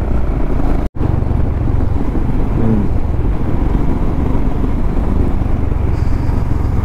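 Motorcycle engine running steadily under way, with wind rushing over the microphone. The sound cuts out completely for an instant about a second in.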